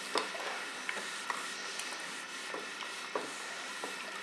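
Iron gliding over a fabric garment on an ironing board, with soft rubbing of the cloth under the iron and hand and a few light clicks.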